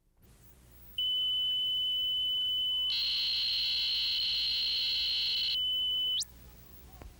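A steady high-pitched electronic test tone, about five seconds long, sounding fuller for a couple of seconds in the middle and ending with a quick upward slide in pitch. It is the line-up tone laid under a videotape's countdown leader.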